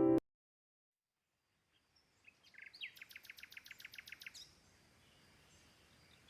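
Background music stops abruptly, and after about two seconds of silence a small bird sings faintly. It gives a few chirps, then a fast trill of repeated high notes lasting over a second.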